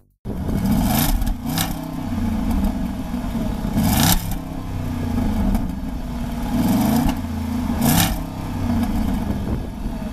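Jaguar XK's 5.0-litre V8 exhaust, heard close at the tailpipes, revved up and let fall back several times, the pitch rising and dropping with each blip.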